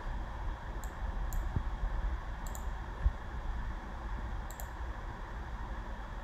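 Computer mouse clicking: two single clicks, then two quick double clicks, over a steady low room rumble.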